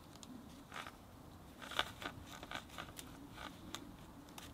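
A trail camera's nylon mounting strap being pulled through its buckle and cinched around a tree trunk: a series of short rasping zips and clicks, the sharpest just under two seconds in.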